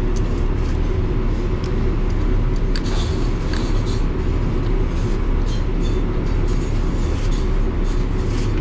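A steady low machinery drone, with scattered small metal clicks and scrapes from pliers working on the shaft coupling of a glycol circulating pump that is stiff and hard to turn, gummed up with rust.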